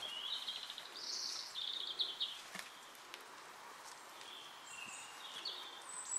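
Birds singing faintly: several short, trilled phrases, a cluster in the first couple of seconds and more near the end, over a steady background hiss.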